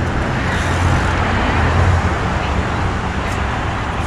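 Steady rush of wind and road noise from riding a road bicycle among traffic, with a low rumble that eases about two seconds in.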